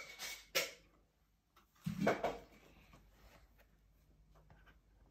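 Faint handling sounds of a cardboard board book being moved: a few soft clicks at the start and a short rustle about two seconds in, then quiet room tone.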